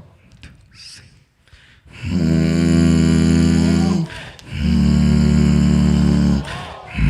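Beatboxers' deep, sustained vocal bass notes: two steady low drones of about two seconds each with a short break between them, and a third starting near the end, after a quieter opening with a few faint mouth sounds.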